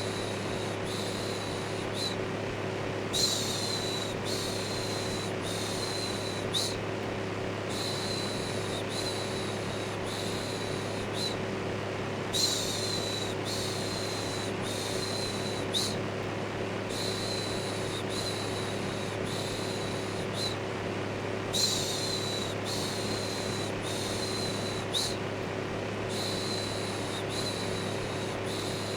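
Electric fan running steadily with a low motor hum, overlaid by a looped shushing 'shhh' in short pulses about once a second, in runs of three or four with brief pauses, as white noise for soothing a baby to sleep.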